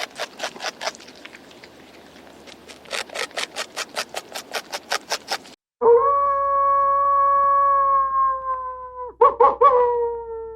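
A fast run of sharp clicks, about five a second, for the first half. Then a wolf howls: one long steady call that sags slightly in pitch at its end, followed by a few short, falling howls.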